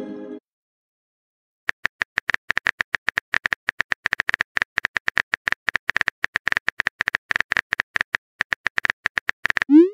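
Rapid, uneven keyboard tap clicks of a chat app's typing sound effect, starting about two seconds in and running as a message is typed out, followed right at the end by a short rising swoosh as the message is sent.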